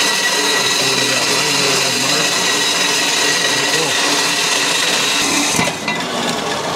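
Power saw cutting a slash cut through a stainless steel exhaust tip: a steady cutting noise with a constant whine, which stops about five and a half seconds in.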